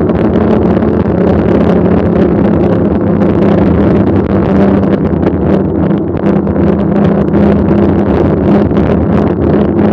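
A mountain bike being ridden: wind rushes over the microphone, and the tyres give a steady rolling hum that dips a little in pitch about six seconds in.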